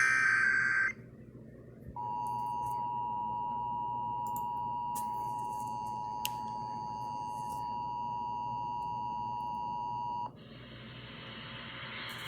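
Emergency Alert System signal relayed over the radio. It opens with the tail of the EAS header's shrill data burst, then a second's pause, then the two-tone EAS attention signal held steady for about eight seconds. The tone cuts off into radio hiss that grows slowly louder toward the end.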